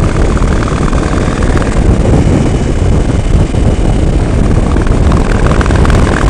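Wind buffeting the microphone of a camera on a motorcycle rider at road speed, a loud steady rush, with the motorcycle's engine running underneath.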